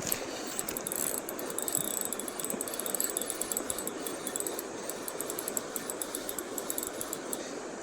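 Spinning reel clicking rapidly and irregularly over the steady rush of riffle water, the clicking stopping shortly before the end.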